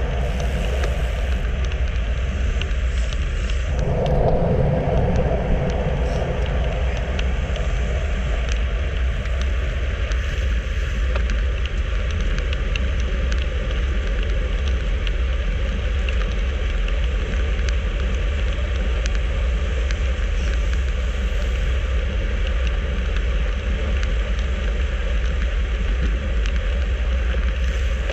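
Wind rushing over the microphone of a camera mounted on a road bike moving at about 35–39 km/h, with a steady low rumble of tyres on asphalt. The noise swells briefly about four seconds in.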